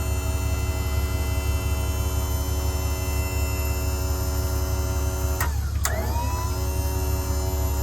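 Electric service-crane motor swinging the boom side to side, a steady whine over a low hum. About five and a half seconds in it cuts out with a click, then starts again and its pitch rises back up.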